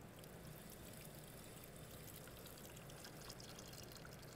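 Faint, steady trickle of water pouring over a whole fish.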